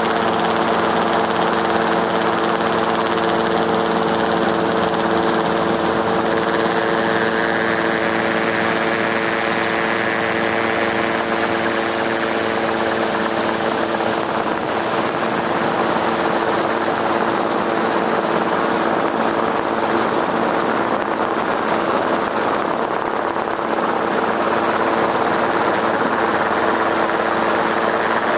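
Rotor and engine noise of the aircraft carrying the camera, heard from on board: a loud, steady hum with several unchanging tones over a rushing noise.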